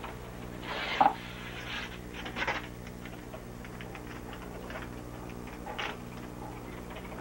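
Handling noises: a few short knocks and rustles as things are moved about, the loudest a sharp knock about a second in, over a steady electrical hum.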